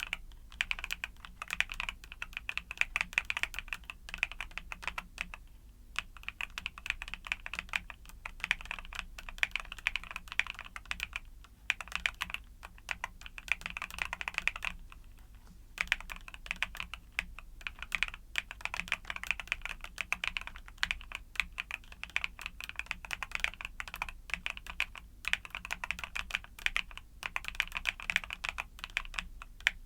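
Typing on a YUNZII mechanical keyboard with Cocoa Cream switches: a rapid, even patter of keystrokes in runs, broken by brief pauses a few times.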